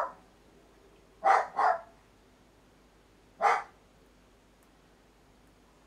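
A dog barking in short, sharp barks: one at the very start, a quick pair about a second and a half in, and a single bark at about three and a half seconds.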